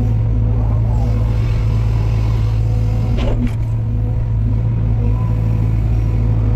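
A heavy machine's engine running steadily with a constant low hum. A brief sharp sound cuts through about three seconds in.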